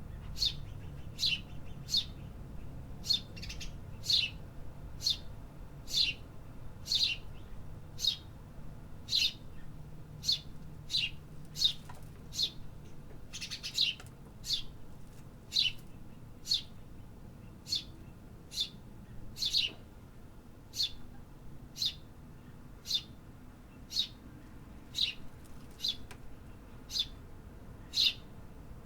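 A bird chirping over and over: short, sharp chirps at roughly one a second, with a faint low background hum underneath.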